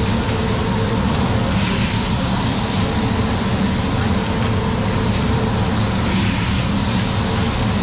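Beef patties sizzling steadily on a hot flat-top griddle, over a continuous low rumble of kitchen noise.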